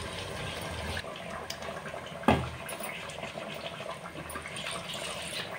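Chicken curry with freshly added masala paste bubbling in an aluminium pot: a steady wet, bubbling noise. There is one sharp knock about two seconds in.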